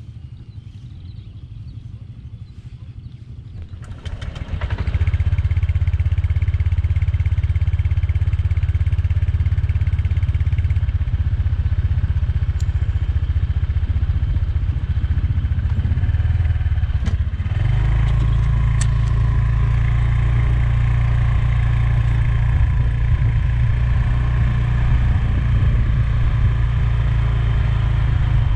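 Motor scooter engine running, much louder from about four seconds in. About two-thirds through the scooter moves off, and a deep wind rumble on the rear-mounted camera's microphone joins the engine.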